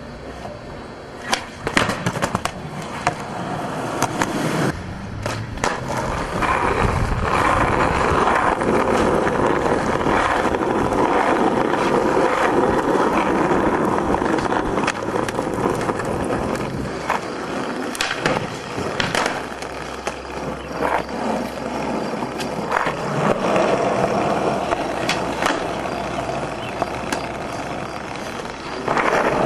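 Skateboard wheels rolling over concrete and asphalt, with sharp clacks scattered throughout as boards are popped and land on tricks.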